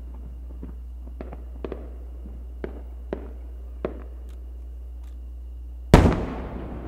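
Aerial fireworks: a few small, sharp cracks of distant shell bursts in the first four seconds, then about six seconds in the loud boom of a large aerial shell bursting, which dies away slowly in a long echo.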